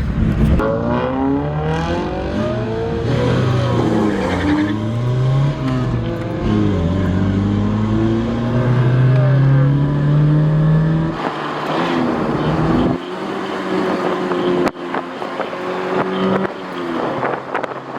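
Car engines revving, their pitch rising and falling, more than one engine at once. About eleven seconds in the deepest engine sound drops away, leaving lighter engine noise.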